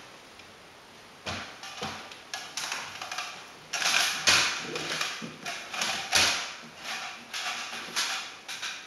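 Irregular knocks and rustles, several a second, from someone moving through an empty room with a handheld camera: footsteps on the flooring and handling noise. They start about a second in.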